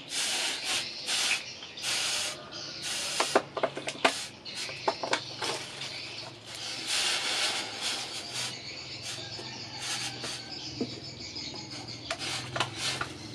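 Hot steel machete blade, forged from a bearing, being quenched in a water trough: the water hisses and sputters in bursts each time the blade is dipped and moved, with a few sharp crackles about three to five seconds in and a longer hiss around the middle.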